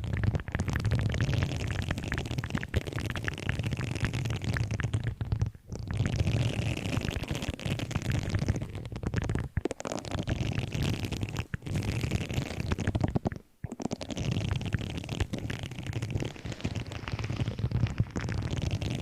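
An object handled and scratched close to the microphone, giving a dense crackling, rustling noise with a low rumble that stops briefly three times.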